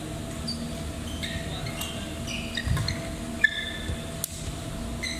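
Badminton doubles rally: shoes squeaking on the indoor court floor as the players move, and a sharp racket-on-shuttlecock hit about three and a half seconds in, over a steady hall hum.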